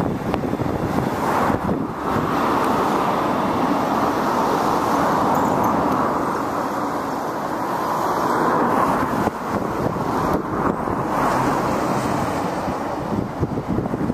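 A train running past at speed: a steady, loud rush of wheel and air noise that swells and eases slowly, with wind buffeting the microphone.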